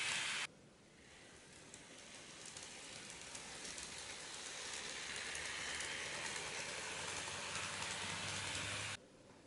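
N-gauge model of an Osaka Municipal Subway 60 series train running on the track, its motor whirring and wheels rolling on the rails as an even hiss with a low hum. It grows steadily louder as the train moves off from the platform and comes closer, and cuts off abruptly near the end.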